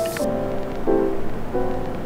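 Gentle instrumental background music, with new notes starting about every two-thirds of a second. A soft hiss cuts off just after the start.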